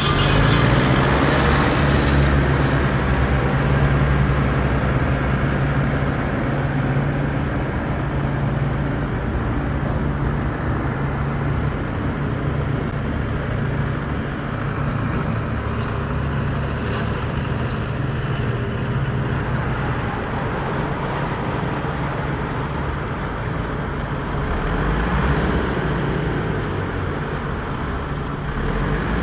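Remote-control trucks and construction machines running: a steady low engine-like drone that swells slightly about 25 seconds in.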